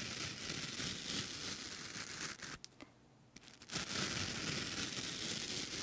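Razor scraping close to the microphone in a mock shave of ear hair: two long scratchy strokes with a short pause between.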